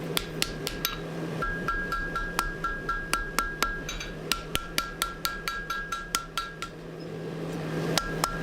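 Hammer striking steel on an anvil in steady blows, about three to four a second, each with a bright ring, with two brief pauses. A steady low hum runs underneath.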